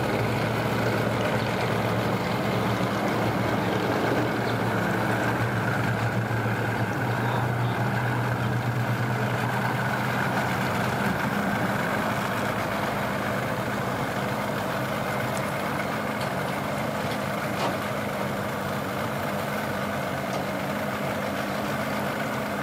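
An engine running steadily at idle, a low even hum that eases off a little about halfway through.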